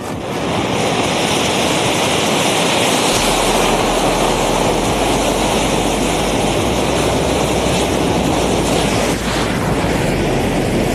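A homemade jet of about 500 bundled matches burning all at once, making a loud, steady rushing hiss as flame shoots out of its back end.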